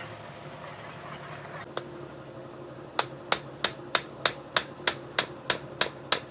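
Repeated sharp metal taps with a short ring, starting about halfway through and going on at an even pace of about three a second.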